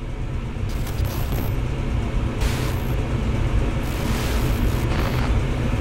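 Loud, dense rock music swelling toward the song's climax: heavy drums and crashing cymbals over a thick, rumbling low end, growing louder throughout.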